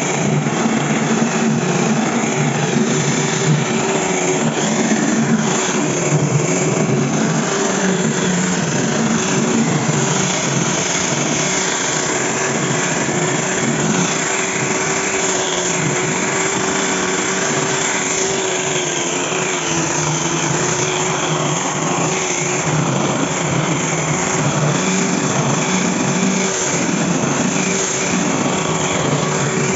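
Angle grinder running steadily under load as it grinds and shapes wood, a continuous whine with noise that hardly changes in level.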